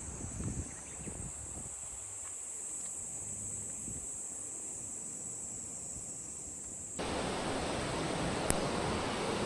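Steady rushing of stream water with a high steady hiss above it. About seven seconds in the sound cuts abruptly to louder, fuller water noise, and a single sharp click follows a second later.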